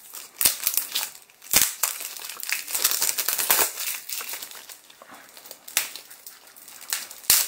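Plastic shrink wrap on a trading card deck box crinkling and crackling as fingers pick at and pull on its tear strip, which seems stuck. A few sharp clicks among the crackling, the loudest near the end.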